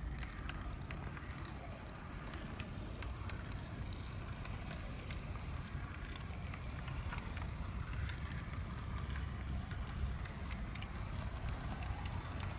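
HO-scale brass model steam locomotive, a Great Northern Q-1 2-10-2, running along the track: a steady low hum from its motor, gears and wheels, with faint scattered ticks.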